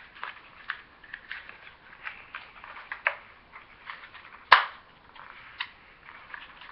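Cardboard box packaging being handled: scattered crinkles and clicks as a plush toy is worked free of its box, with one sharp snap about four and a half seconds in.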